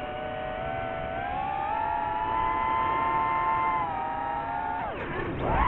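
DJI FPV drone's motors and propellers whining in flight, the pitch sliding up and down. Near the end the whine plunges sharply in pitch and then climbs straight back up, louder.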